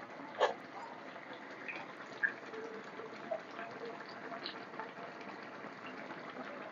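Shrimp and vegetable curry simmering in a pan, its thick gravy bubbling with many small pops, and two sharper pops about half a second and about two seconds in.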